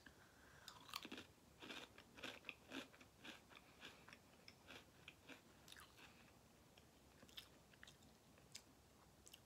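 Faint close crunching of a person chewing a crisp Ritz cheddar potato-and-wheat cracker. The crunches come quickly at first and thin out after about six seconds.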